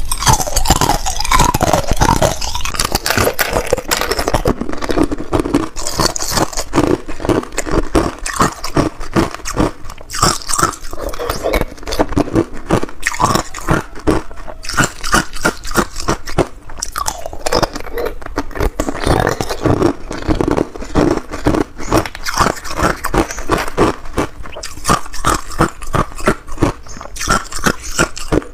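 Hard clear ice being bitten and chewed close to a clip-on microphone: a dense, continuous run of sharp crunches and cracks as the ice breaks between the teeth.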